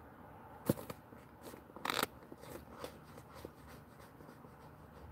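Faint handling noise from a phone held in the hand: a sharp click about two-thirds of a second in, a short hiss near two seconds, then a few soft ticks.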